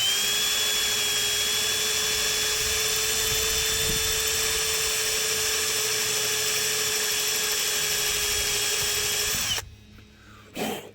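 Power drill running steadily at constant speed, drilling a pilot hole into a broken bolt stuck in a rooftop antenna base to make way for a bolt extractor. The whine holds an even pitch, then cuts off suddenly near the end.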